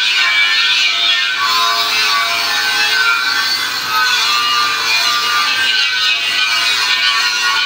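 Compressed-air spray gun hissing steadily as it sprays paint onto a metal frame, with a few faint held tones underneath.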